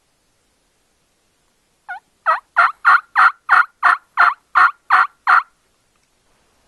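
Turkey yelping: a run of about ten evenly spaced yelps, roughly three a second, starting about two seconds in, the first one softer.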